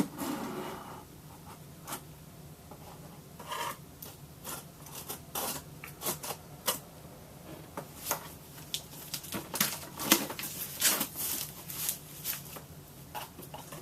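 A shipping package being opened by hand: a run of irregular scratching, rubbing and tearing as tape and packaging are cut and pulled apart, busier in the second half.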